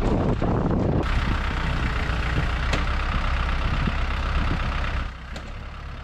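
Diesel engine of a Branson 4220 compact tractor running steadily as the tractor drives along, with a constant low hum; it gets quieter about five seconds in.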